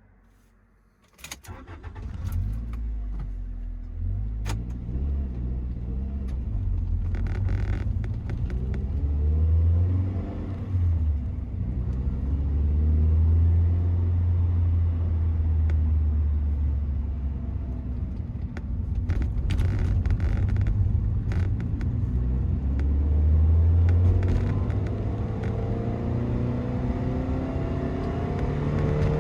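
Toyota MR-S's 1.8-litre four-cylinder engine running with a deep, steady rumble, with a few sharp clicks along the way. Near the end its pitch rises as the engine revs up.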